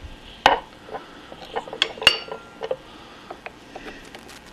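Hand tools clinking against the metal lathe apron as its screws are backed out with a screwdriver: a run of sharp metal-on-metal clinks and taps. The loudest come about half a second and two seconds in, the second with a brief ring.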